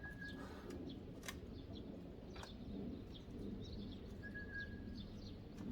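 Small birds chirping outdoors: many short, high chirps and two brief steady whistled notes, one at the start and one about four seconds in. There are two sharp clicks, about one and two and a half seconds in, over a low, steady background rumble.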